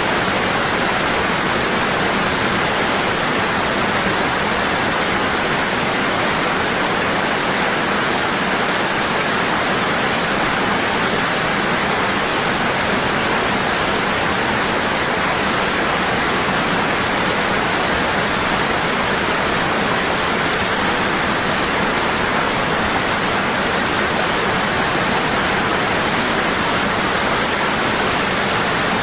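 Waterfall: water falling heavily and constantly in a steady, even rush.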